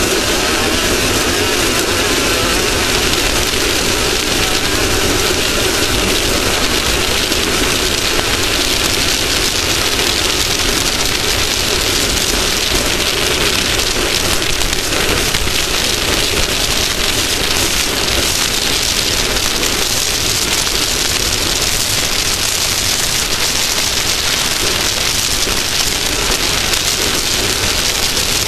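Steady, loud engine and rushing noise of off-road race vehicles, unbroken and with no clear rise or fall in pitch.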